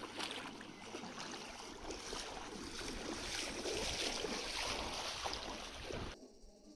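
Feet wading through ankle-deep water on a flooded walkway: a continuous sloshing and splashing of steps. It cuts off abruptly near the end.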